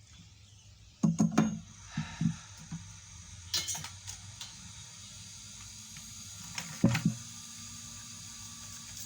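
Light knocks and clicks of tools and parts being handled on a repair bench, over a faint steady hiss that sets in about a second in.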